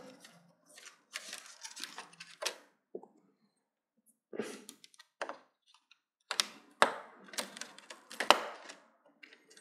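Irregular clicks and light taps of small parts being handled while working on a TV's LED backlight, with a denser run of sharper clicks in the second half.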